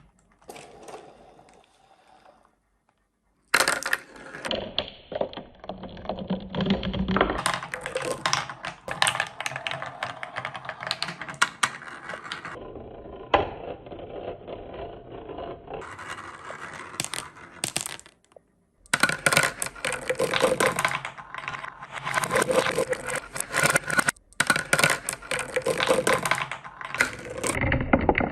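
Marbles rolling and clattering down a wooden marble run: a dense rattle of clicks and knocks that cuts out abruptly a few times.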